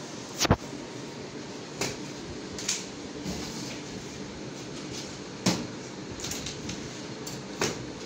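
Plastic packing straps on a cardboard washing-machine box being cut with scissors, each giving a sharp snap: about five in all, the loudest about half a second in, over a low steady room noise.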